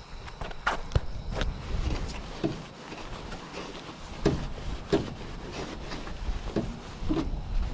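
Irregular knocks, clicks and scrapes on an aluminum jon boat hull as it is scrubbed clean by hand, with a hollow thud now and then, the loudest a few seconds in and near the end.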